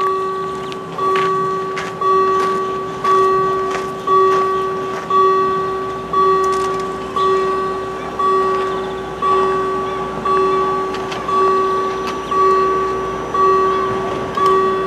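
Level crossing warning bell ringing about once a second, each stroke a ringing tone that dies away before the next, signalling that the barriers are closing for an approaching train.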